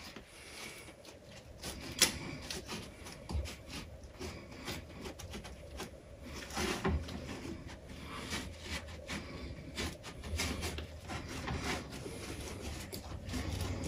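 Microfibre cloth rubbing across the clear display window of a pinball machine's speaker panel, an uneven wiping and scrubbing with scattered light knocks, the sharpest about two seconds in.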